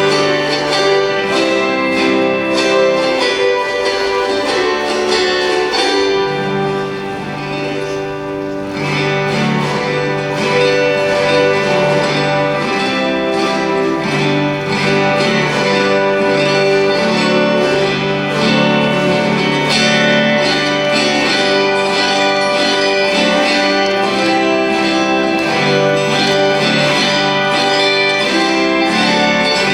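An autoharp ensemble playing a hymn medley together: many strummed, ringing chords over sustained notes, with a softer passage about a third of the way through.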